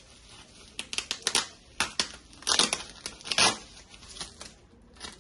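Clear plastic packaging bag crinkled and rustled in the hands: a run of sharp crackles over about three seconds, loudest a little past the middle.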